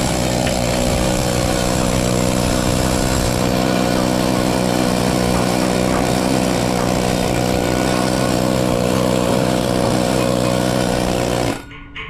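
Pneumatic rust-chipping gun on a ship's steel deck running flat out in a loud, steady buzz; it cuts off shortly before the end.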